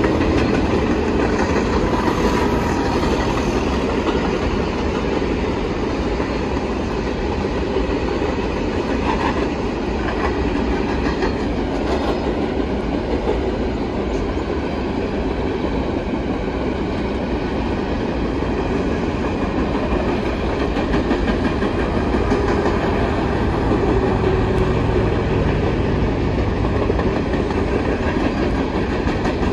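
Freight train's covered hopper cars rolling past: a steady rumble of steel wheels on the rails, with a clickety-clack from the wheels.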